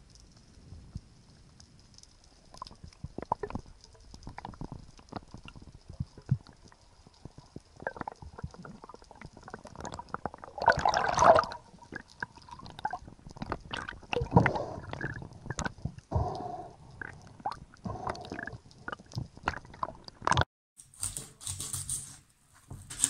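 Underwater audio from a spearfishing camera: scattered clicks and knocks with bubbling and rushing water, loudest about eleven and fourteen seconds in. Near the end a sudden cut brings a knife working into a fish on a cutting board.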